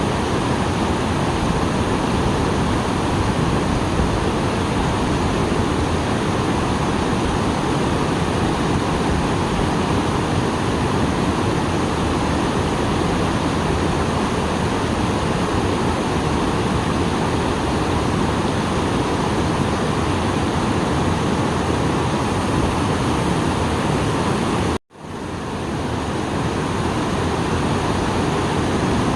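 A small waterfall swollen by rain, giving a steady, full rush of falling water. Near the end the sound cuts out for an instant, then swells back.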